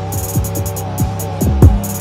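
Background music with a hip-hop beat: deep kick drums that drop in pitch, fast hi-hat ticks and a steady bass line.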